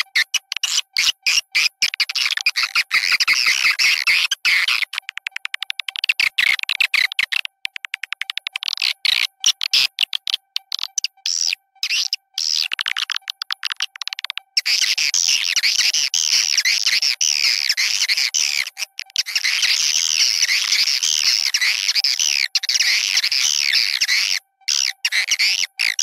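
Swiftlet lure call: a looped recording of swiftlet calls, fast trains of sharp clicks alternating with dense, high twittering chirps, with a songbird-chirping background track mixed in. It is played to draw swiftlets into a nesting house.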